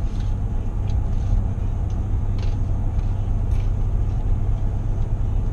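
Steady low road and engine rumble heard inside the cab of a Chevy Silverado pickup driving along. A few faint rustles of a plastic snack bag come through in the middle.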